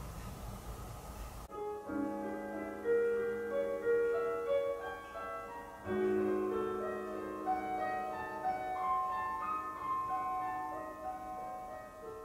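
Piano music: chords and a melody, freshly struck about two seconds in and again about six seconds in. Before it, a steady hiss and low hum cut off abruptly about a second and a half in.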